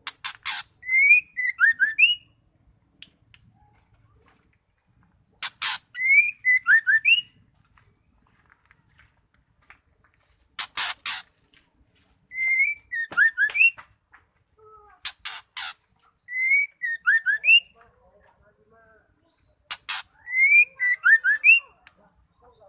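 Female white-rumped shama calling in repeated phrases, each a harsh rasping burst followed by a few short whistled notes and thin high ticks, with quiet gaps of a second or more between phrases.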